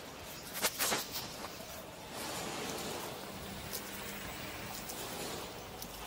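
Street ambience heard while walking along a pavement: a steady outdoor hiss, with a few sharp knocks about a second in.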